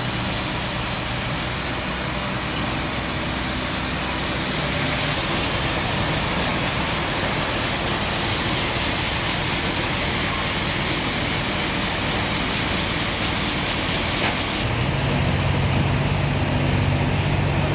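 An engine running steadily under a heavy, even hiss. A lower engine hum gets louder about fifteen seconds in.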